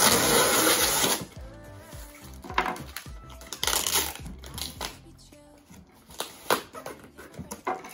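Packing tape being slit and ripped off a cardboard box: one long tearing rip in the first second, then shorter rips and scrapes of tape against cardboard.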